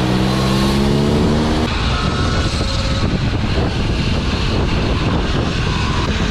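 A vehicle motor climbing in pitch as it accelerates for the first second and a half, then a steady, loud rush of wind and road noise.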